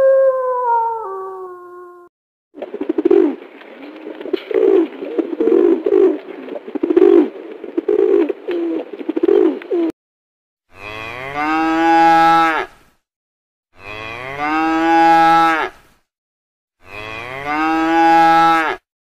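A wolf's howl held steady, then dropping in steps and ending about two seconds in. Then pigeons cooing, many low coos overlapping for about seven seconds. Then a calf mooing three times, each moo about two seconds long with short gaps between.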